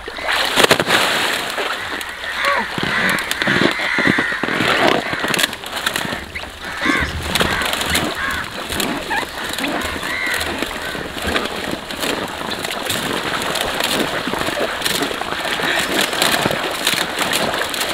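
Water splashing and sloshing as a man lies on a raft of inflated rubber balloons and kicks his legs to paddle across a pond, with a few short squeaks now and then.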